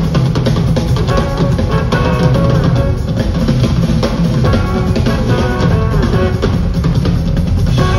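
Live rock band playing a Latin-rock instrumental: two drum kits drive a busy, steady beat with electric guitar over it, heard from the crowd in the hall.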